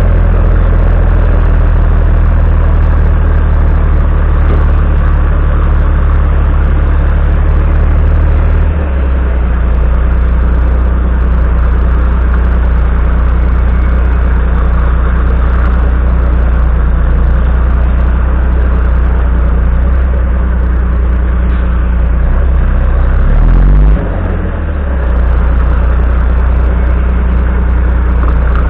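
Volvo FMX 440's six-cylinder diesel engine running steadily as the tractor unit slowly manoeuvres a low-loader trailer. About 9 s in the engine note drops lower. Around 23 s the pitch rises briefly and then falls back with a short dip in level, as the throttle is let off.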